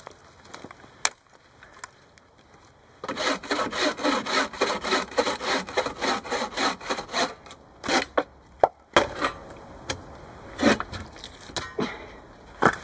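Hand saw cutting through a log with quick, even back-and-forth strokes for about six seconds before stopping. There is a single knock of wood about a second in and a couple more after the sawing.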